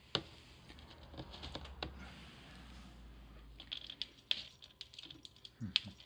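A kitten scratching in pellet cat litter in a plastic litter box to cover her droppings. The dry pellets click and rattle in irregular scratches, coming faster and louder near the end.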